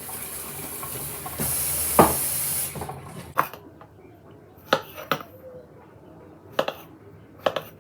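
Kitchen tap running as strawberries are rinsed, the water louder for about a second with a knock in the middle, then turned off near the three-second mark. After that come a handful of separate clinks and knocks of kitchenware.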